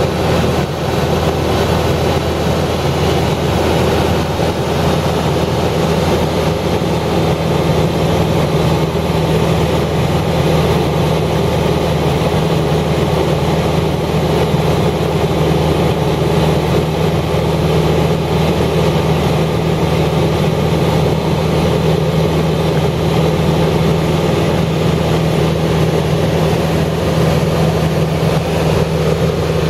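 A steady, unchanging engine hum, low-pitched with a haze of noise above it.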